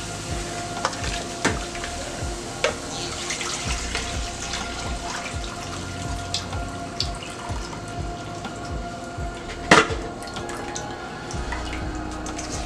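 Coconut milk poured through a metal sieve into a frying pan of sautéed seasoning, trickling and splashing steadily, with small clicks. A sharp knock sounds once, near the end.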